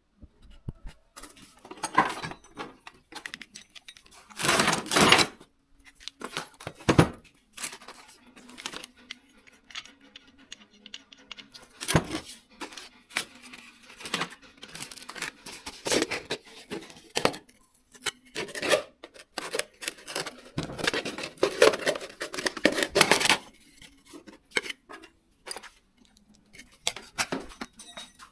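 Irregular metallic clicking, clinking and short scraping strokes as an overlong screw is worked and cut down by hand, with longer runs of scraping about four seconds in and again around twenty-one seconds in.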